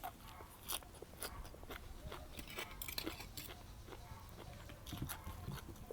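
A person chewing food with crunching: a run of many small, sharp clicks.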